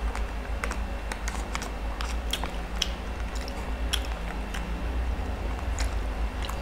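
Close-miked chewing of a mouthful of spaghetti, with scattered sharp mouth clicks over a steady low hum.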